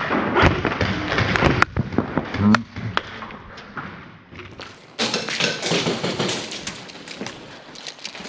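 Airsoft guns firing in irregular sharp shots, mixed with thuds and knocks from players moving.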